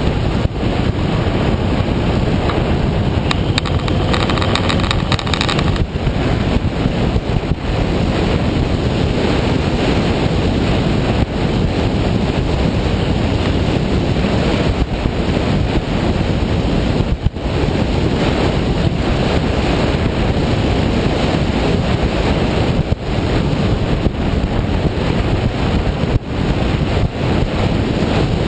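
Steady wind rush buffeting the microphone of a camera on a moving motorcycle, with the motorcycle's engine and road noise underneath.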